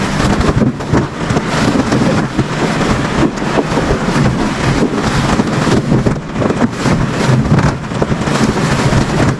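Loud wind buffeting the microphone over a low engine rumble from a moving vehicle or boat.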